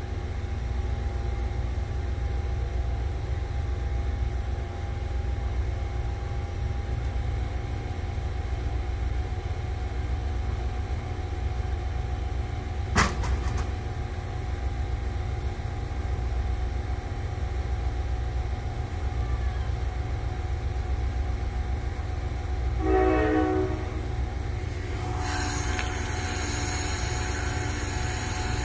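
Diesel locomotive rumbling steadily, with a short horn blast about three-quarters of the way through. Near the end a louder rushing hiss of wheel and rail noise builds. A single sharp click sounds near the middle.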